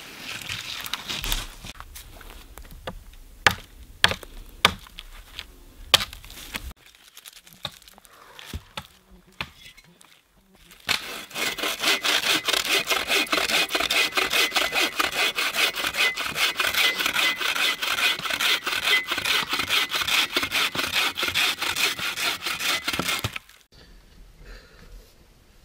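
Bow saw cutting through a dry log in rapid back-and-forth strokes for about twelve seconds, then stopping suddenly: firewood being processed. Before the sawing, scattered snaps and crunching of dry wood and forest litter as a long dead pole is dragged through the woods.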